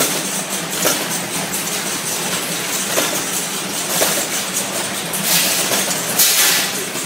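Water-needle type automatic cartoning machine running: a steady mechanical clatter with a sharp click every second or so, and two short hissing bursts near the end.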